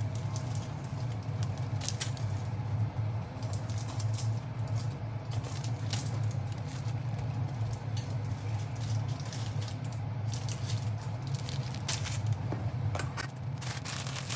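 Plastic noodle packaging crinkling and crackling as bundles of dried udong noodles are cut out with kitchen scissors and unwrapped, in many short sharp snaps and rustles. A steady low hum runs underneath.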